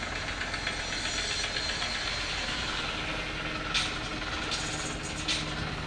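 Steady rushing wind and scraping of a snowboard over snow from GoPro riding footage, playing through a phone speaker, with a few short crackles near the end.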